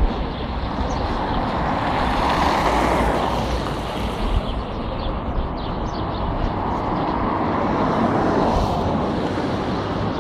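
City bus engine and road noise heard from inside the passenger cabin as the bus drives, swelling in loudness twice.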